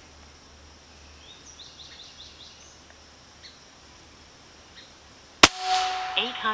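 A single shot from a Benjamin Bulldog M257 .25-calibre PCP air rifle about five and a half seconds in: one sharp crack, followed by a short ringing tone that fades within a second. Before it, quiet woodland background with a few faint bird chirps.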